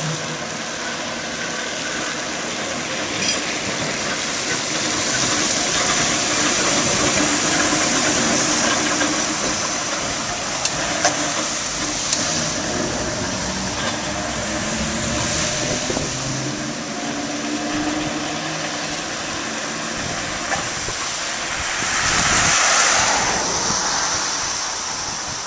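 New Orleans Perley Thomas streetcar rolling along flooded track, its wheels plowing through standing water with a steady rushing wash. There are a few sharp clicks around the middle, and a louder rush of water noise near the end.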